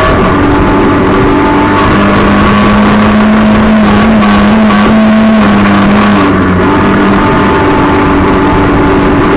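Race car engine heard from inside the cockpit, running hard at steady high revs on a dirt oval, loud throughout, with the pitch shifting about six and a half seconds in as the revs change.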